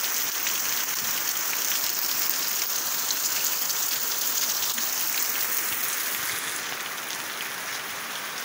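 Heavy rain pouring onto ground and foliage: a steady hiss scattered with the ticks of individual drops. It gets a little softer for the last couple of seconds.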